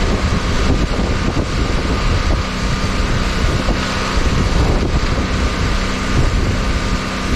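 Wind buffeting the microphone over the steady drone of a small engine running.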